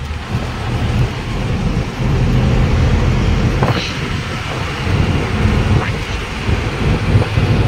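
Road and engine noise of a moving truck, with wind rumbling on the microphone.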